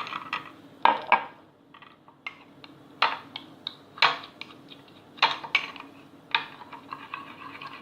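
Small spoon clinking and scraping against a mug in irregular knocks, as a spoonful of Nutella is scooped and worked off the spoon into the cake batter.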